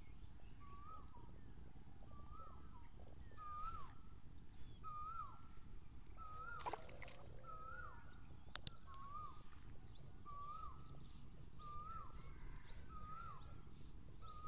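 An animal calling over and over in the background: a short note that rises then drops, repeated roughly once a second. Fainter, higher chirps join in the second half, and a couple of sharp clicks come about midway.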